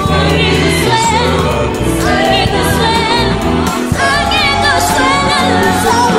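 Mixed choir of men's and women's voices singing a gospel hymn live in harmony over steady low accompanying notes.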